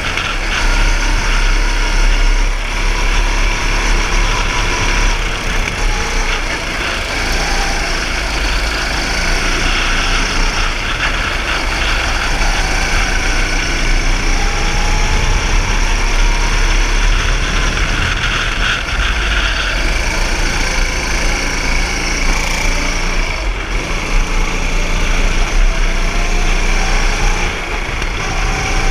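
Go-kart engine heard from the driver's seat while lapping a track, running continuously and rising and falling in pitch as the kart slows for corners and accelerates out of them.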